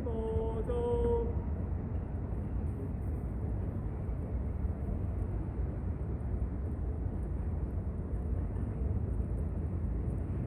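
Steady low rumble of outdoor background noise, with a short held tone in the first second or so.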